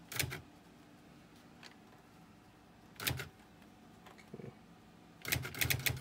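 Brother CE-50 Correctronic daisy wheel electric typewriter's print mechanism clattering as keys are pressed: a short burst at the start, another about three seconds in, then a quick run of rapid strokes near the end.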